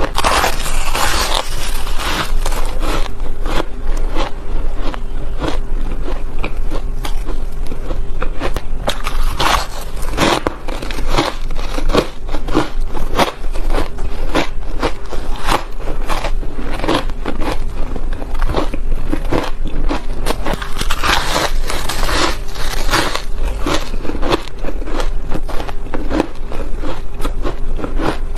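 Close-up crunching and biting of ice chunks coated in powdered milk and matcha: a dense, continuous crackle of crunches, with louder bites near the start, about ten seconds in and again a little past twenty seconds.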